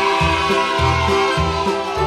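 Background music with a steady bass beat and a wavering higher melody over sustained tones.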